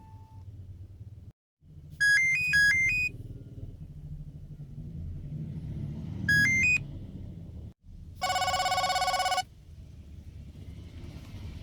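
Nokia 6230b's loudspeaker playing ringtones: a quick figure of high electronic beeping notes, a shorter similar figure about four seconds later, then a buzzy tone held for about a second, over a steady low rumble.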